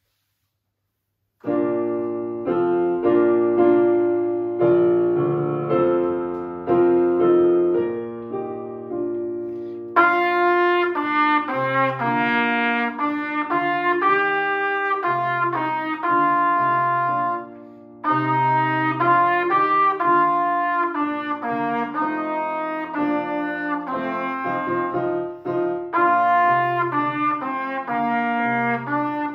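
Piano opens with an introduction of chords; about ten seconds in a brass instrument comes in with the melody over the piano, with a short break a little past the middle.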